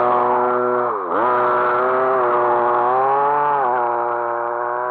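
RC car's small two-stroke engine running at high revs; about a second in the pitch drops sharply as the throttle comes off and then climbs back, with a smaller dip and recovery near the end.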